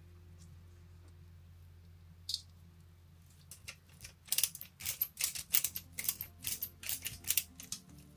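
Small precision screwdriver driving a tiny screw into a plastic lamp housing from a model truck kit: a single scratch, then from about halfway in a quick run of sharp, scratchy clicks several times a second. A faint low hum of background music sits underneath.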